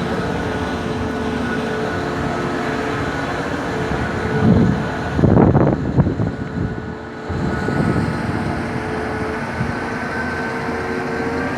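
A large engine running steadily with a layered hum, surging louder for a couple of seconds midway, then its pitch beginning to rise near the end.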